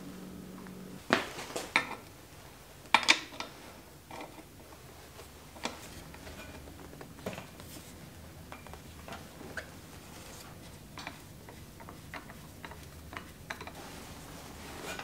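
Metal tool clinks and clicks as a flat pedal is fitted to a bicycle crank arm and tightened with a hex wrench. A few sharp clanks come in the first three seconds, then lighter ticks of threading and tightening. A low hum from the freely spinning crank stops about a second in.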